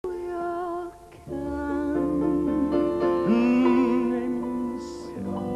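A woman singing a slow song into a microphone with instrumental backing, including one long wavering held note a little past the middle.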